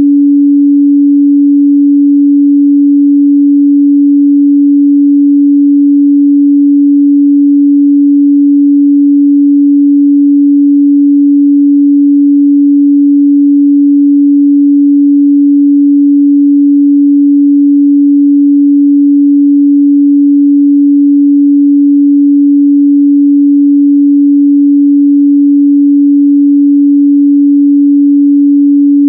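A pure 285 Hz sine-wave test tone, held steady and loud at one pitch with no change.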